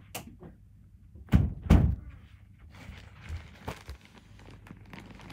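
Two heavy, dull thumps about half a second apart, with lighter knocks and rustling around them.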